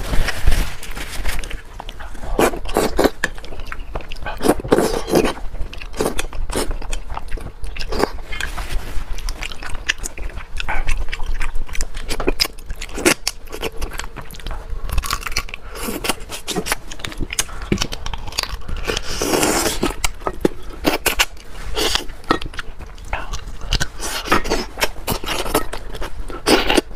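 Close-miked eating of stewed fish head: a man chewing and smacking his lips while sucking meat off the bones, a dense, irregular run of short clicks and smacks.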